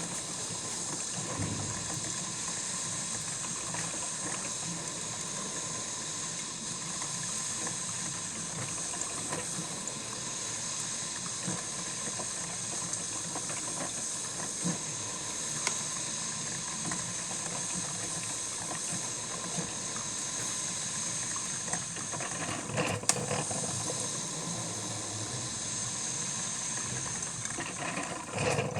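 Cuisinart drip coffee maker brewing: a steady hiss of steam with water bubbling as the heater pushes hot water up to the filter, and a brief knock about twenty-three seconds in.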